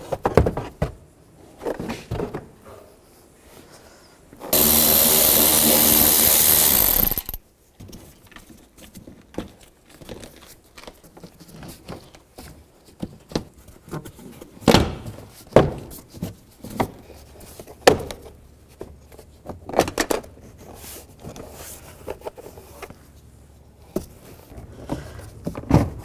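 A power drill runs steadily for about three seconds, starting about four and a half seconds in. Before and after it come many short knocks and clicks of plastic interior trim panels being unfastened and pulled loose.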